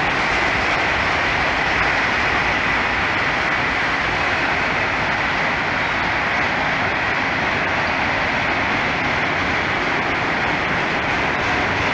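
Freight train autorack cars rolling slowly past: a loud, steady noise of wheels on rail, with a faint steady high ring running through it.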